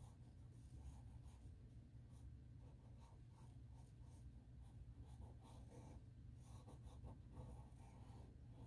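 Faint scratching of a pencil on drawing paper in short repeated strokes, over a low steady hum.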